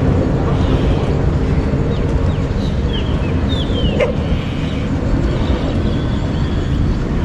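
Steady low rushing roar of the rain-swollen Bagmati River, with a few brief high falling calls and a single sharp click about four seconds in.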